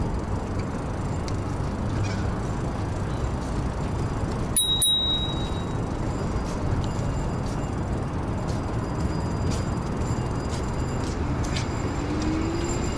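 Steady wind and tyre noise from riding a 2000 W DIY electric bike, with one short, high ding about four and a half seconds in.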